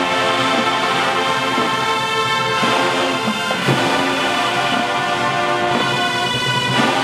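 Marching band brass section playing loud held chords, with a few drum hits underneath.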